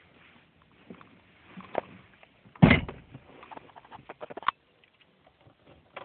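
A 1993 Chevrolet Omega Suprema's door being shut from inside the car: one heavy thump a little under three seconds in. Around it are small clicks and rustles of handling.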